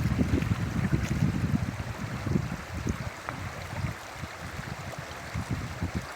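River water rushing, with a low, gusty rumble of wind on the microphone that eases off about halfway through.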